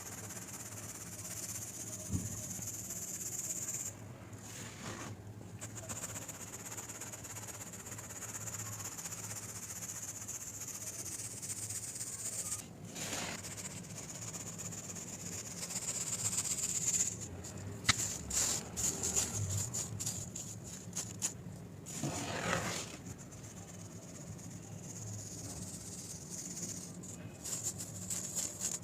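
ASMR crumbling sound: a steady, fine crackling hiss, breaking off briefly a few times, with denser bursts of sharper crackles a little past the middle.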